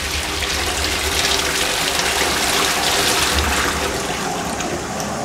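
Twyford Sola rimless wall-hung toilet flushing from its concealed cistern: a steady rush of water swirling around the pan, loudest about halfway through and easing a little toward the end.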